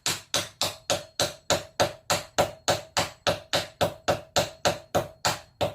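A hammer striking in a steady run, about three or four blows a second, each with a short metallic ring. It is driving the shortened clip remover's shank into a small piece of wood.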